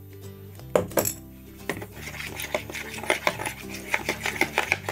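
A spoon clicking and scraping quickly against a plastic bowl as purple glue slime mixture is stirred, after a couple of knocks about a second in, over steady background music.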